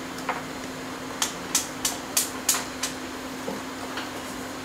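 A quick run of about six light, sharp clicks, roughly three a second, then a couple of fainter ticks, from small tools being handled at a phone-repair bench. A steady electrical hum runs under them.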